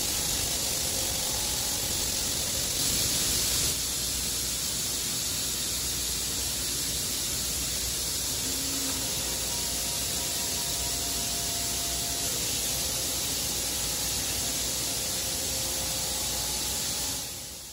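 Steady hissing industrial noise from a running tube mill and welding line, with faint humming tones underneath; it fades out at the very end.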